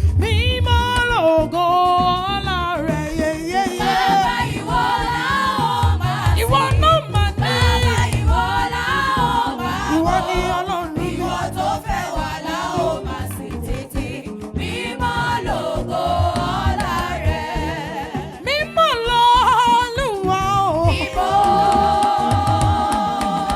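Yoruba gospel praise music: singing with wavering, sustained notes and backing voices over a drum beat.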